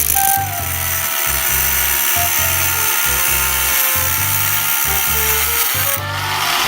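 Background music with a repeating bass line and short melody notes, over a power tool running steadily with a high hiss and a whine that rises about six seconds in.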